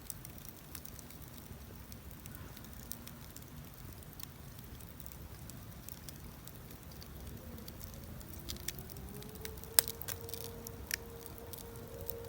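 Wood campfire crackling with scattered small pops over a low rumble, and one sharp pop about ten seconds in. A faint steady tone rises in near the end.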